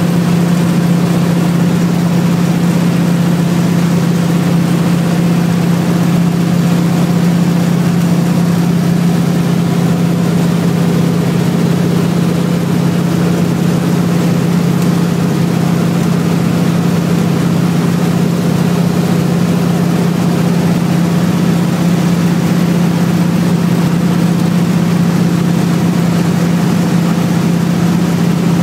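Single-engine floatplane's piston engine and propeller running steadily in flight, heard from inside the cockpit: a constant loud hum with one strong low tone and no change in pitch.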